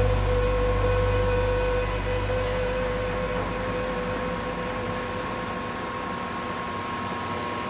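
Metal lathe running with a steady hum and whine, the low hum fading gradually as the machine winds down.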